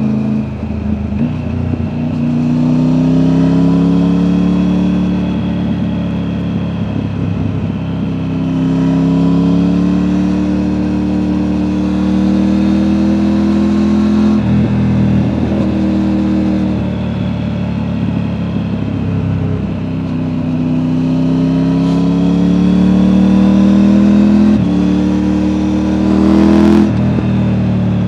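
Triumph Tiger 900's inline-three engine through an Akrapovic exhaust, heard from on board, accelerating hard through the gears: the pitch climbs in long pulls and drops sharply at each gear change, several times.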